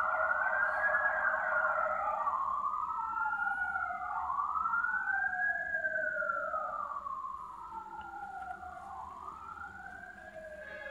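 Emergency vehicle sirens in the background: a fast yelp at the start gives way to slow rising and falling wails, two tones crossing each other, fading away toward the end.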